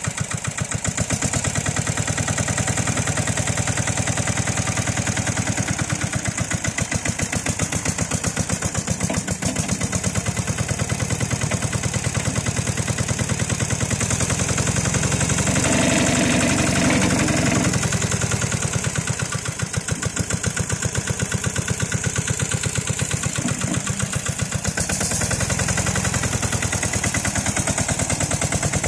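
Ruggerini diesel engine of a Toselli loader running with a rapid, even chug. About halfway through it takes on a harder, higher note for a couple of seconds.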